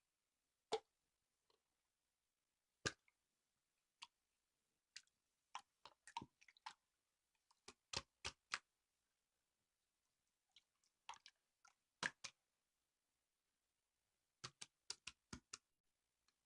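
Sparse short clicks and taps over near silence, some single and some in quick runs of three to five, the last run of five about two seconds before the end.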